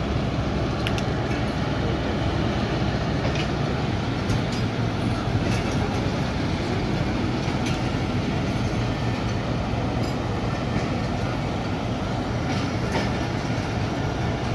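Passenger coaches of a departing train rolling past: a steady rumble and rattle of wheels and running gear on the track, with scattered sharp clicks.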